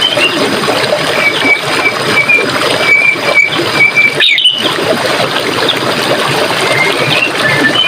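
Running stream water with a steady rush, with small birds calling over it in short high chirps, a run of them in the first half and a few more near the end. The sound cuts out for a moment a little past halfway.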